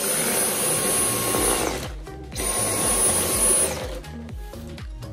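Dyson Cyclone V10 cordless stick vacuum running over a wooden floor with its motorised brush head: a rush of airflow with a high motor whine. It runs twice, each time for about a second and a half, and the whine falls away as the motor winds down after each run.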